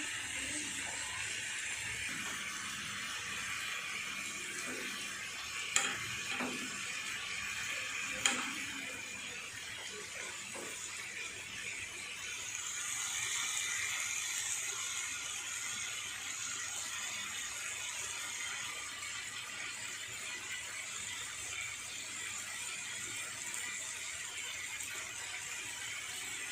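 Marinated chicken pieces sizzling in oil on a grill pan: a steady frying hiss, with two sharp knocks about six and eight seconds in.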